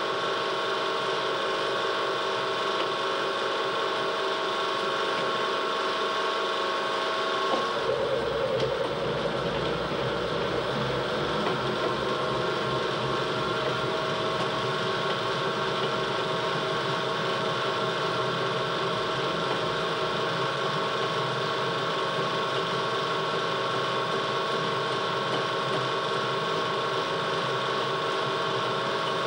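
Steady mechanical hum made of several constant tones. About eight seconds in, the highest tone drops out for a few seconds while a rougher, lower rumble comes in, then the steady hum returns.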